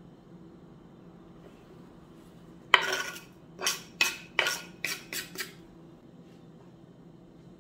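Scraping and knocking of chopped parsley being pushed off a wooden cutting board into a pot of stew. There is one sharp scrape about three seconds in, then six quicker knocks and scrapes over the next two and a half seconds.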